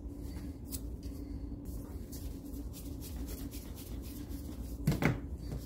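Faint clicks of the plastic nose cone being screwed onto a powder coating gun, over a steady low hum in the room. A brief, louder sound comes about five seconds in.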